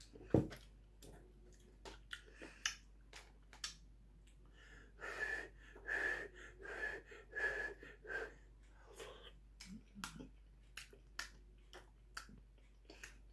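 Quiet eating sounds: a metal spoon clicking and scraping against a plastic instant-rice pot, with chewing and mouth noises. About five seconds in comes a run of five or six short hissing breaths with a faint whistle in them.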